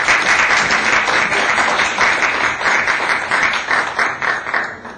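Audience applauding, a dense patter of many hands that dies away near the end.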